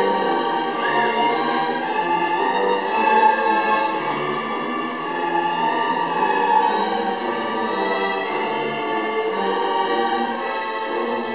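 School string orchestra of violins, cellos and double basses playing together, with long bowed notes.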